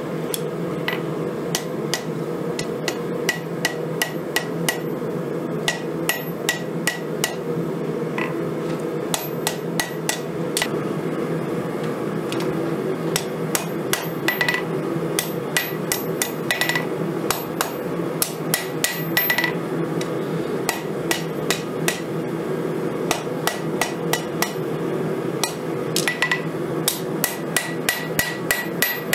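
Hand hammer forging a red-hot steel knife blade on a 132-pound Vevor steel anvil: runs of quick blows with short pauses between them, each blow ringing briefly. A steady low hum runs underneath.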